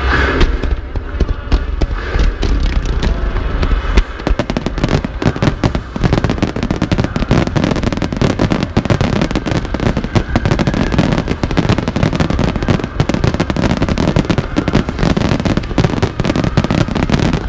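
Fireworks display: heavy low booms for the first few seconds, then from about four seconds in a dense, continuous crackle of many rapid bangs.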